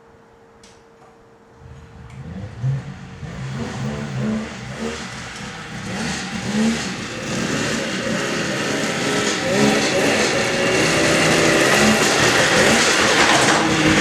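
1998 Polaris XLT 600 snowmobile's two-stroke engine starting up about two seconds in and running with uneven revving, growing louder; the sled runs poorly and is due for a head clean and carburettor rebuild.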